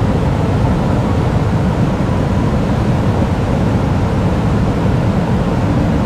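Steady roar of a waterfall and fast-flowing river water, deepest in the low end and unbroken.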